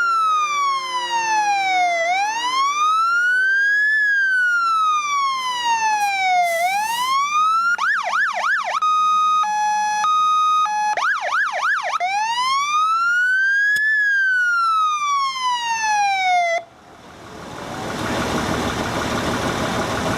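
Fire engine's electronic siren cycling through its tones: a slow rising and falling wail, a fast yelp, a two-note hi-lo, the yelp again and the wail again. It cuts off suddenly about three seconds before the end, and a steady rushing noise swells up in its place.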